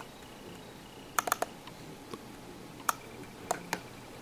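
Laptop keyboard keys clicking: a few scattered single presses, with a quick run of three or four just over a second in.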